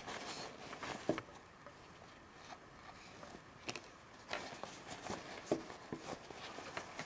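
Fabric drawstring pouch being handled and opened by hand: scattered short rustles and scrapes of the cloth at an uneven pace.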